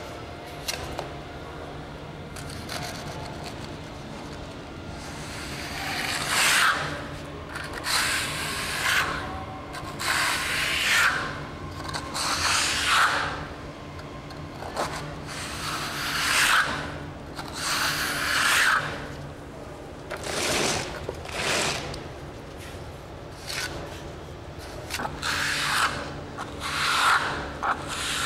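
A plastering trowel scraping wet lime plaster up a wall in long strokes, drawing it up from the bottom to an even thickness. After a quieter first few seconds the strokes come about every second or two.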